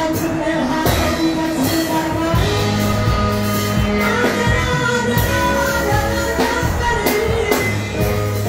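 Live band music: a woman singing into a microphone over electric guitar, keyboard and bass.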